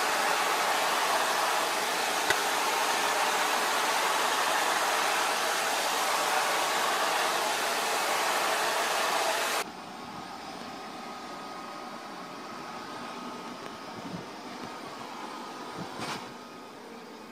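Vacuum cleaner running with a steady, loud hiss as its floor nozzle is drawn over a cat's fur. About ten seconds in it gives way abruptly to a quieter cordless handheld stick vacuum running with a faint motor whine, with a brief knock near the end.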